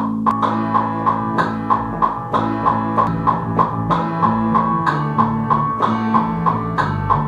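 Keyboard music played on an Alesis V61 MIDI controller through a software instrument: quick repeated melody notes, about three a second, over held low notes that change every second or so.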